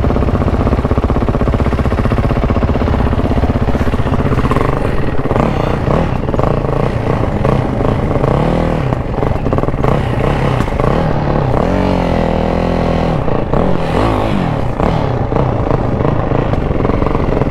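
Off-road vehicle engine running loudly under load, its pitch rising and falling several times as the throttle is opened and closed, with scattered knocks over it.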